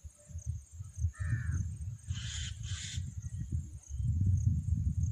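Wind buffeting the microphone in uneven low gusts, over a steady high drone of insects; about two seconds in, a bird gives two short harsh calls.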